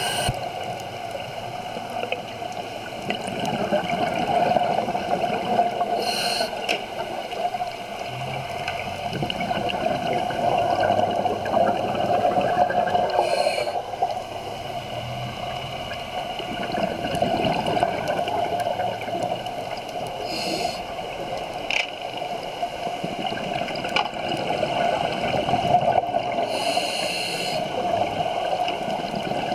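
Underwater sound recorded through a camera housing: a scuba diver breathing on a regulator, with a short hiss about every seven seconds and bubbling, gurgling exhales swelling and fading between them, over steady water noise.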